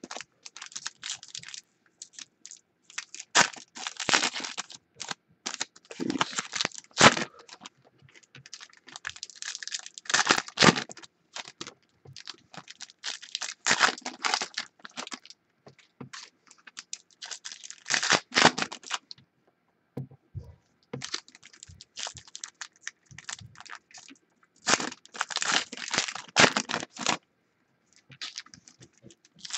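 Trading-card pack wrappers crinkling and tearing as packs are opened, with cards handled and shuffled, in repeated bursts of crackling with short pauses between them.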